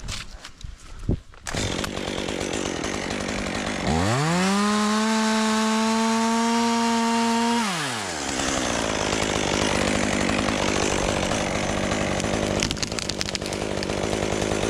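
Chainsaw running. About four seconds in it revs up to full throttle with a rising whine, holds there for about three and a half seconds, then the pitch drops and it keeps running.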